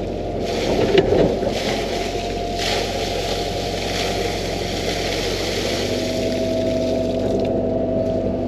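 A 13-ton excavator's diesel engine running steadily under load, with a steady hum and whine, heard from inside the closed cab. A single clunk sounds about a second in.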